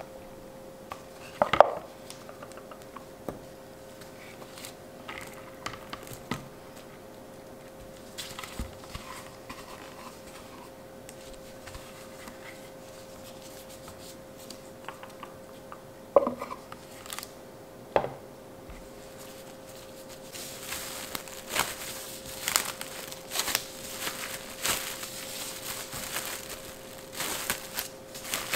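Plastic cling wrap crinkling and rustling as gloved hands press pie dough together inside it, dense from about two-thirds of the way through. Earlier there are a few sharp knocks, the first as a spatula works in a food-processor bowl, over a faint steady hum.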